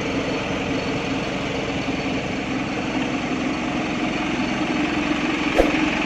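Truck engine idling steadily, with a single short click near the end.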